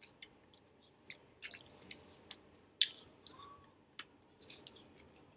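A person eating Spanish rice, close to the microphone: chewing and mouth smacks with scattered short, sharp clicks at irregular intervals.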